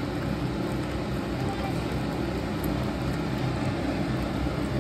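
Flat spatula stirring and scraping thick, reducing milk in a nonstick kadai, over a steady low rumbling background noise.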